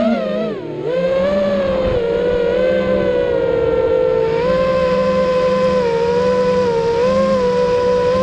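FPV quadcopter's brushless motors and propellers whining, heard from the camera mounted on the quad. The pitch dips briefly about half a second in as the throttle eases, then holds fairly steady with small rises and falls in pitch.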